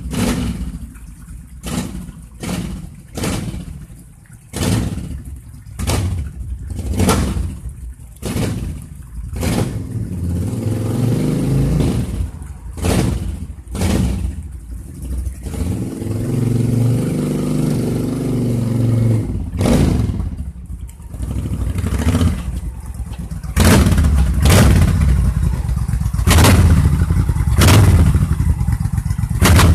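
1995 Suzuki Intruder 1400's V-twin engine through Vance & Hines pipes, revved in a string of short throttle blips, then running more steadily as the bike is ridden, and louder near the end as it comes up close with more blips.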